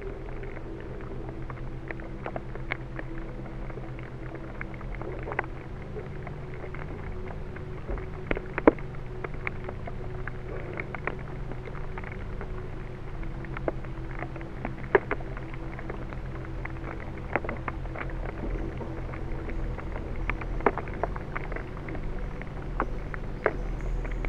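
Amplified recording of seed vibrations: a low steady hum with a few held tones, broken by scattered sharp clicks and crackles.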